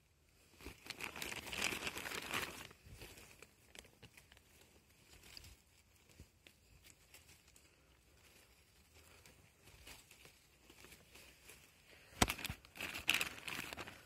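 Dry leaves and twigs rustling and crackling as a hand picks honey mushrooms from forest litter at the base of a stump. It comes in two bursts, one about a second in and one near the end, with a sharp snap just before the second.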